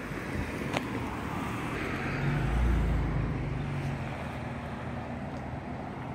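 A car passing on the road, growing louder to a peak about halfway through and then fading, over steady outdoor traffic noise. A single short click comes under a second in.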